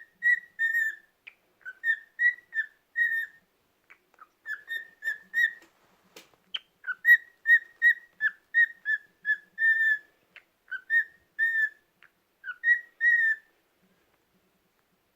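Cockatiel whistling a long run of short, repeated notes, about two a second, that stops near the end.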